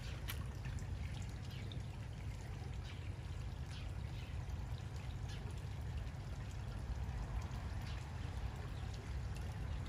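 Pond water trickling, with small irregular splashes and drips, over a steady low rumble.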